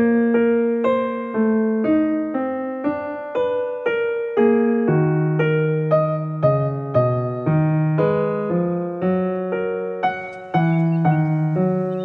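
Background piano music: a slow, gentle melody of struck notes, about two a second, over soft chords.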